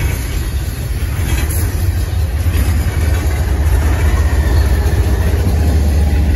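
GE ES44DC diesel locomotive, running as the rear distributed-power unit of an intermodal train, passing close with its 12-cylinder GEVO engine giving a deep steady drone. The drone swells about three seconds in as the locomotive comes by.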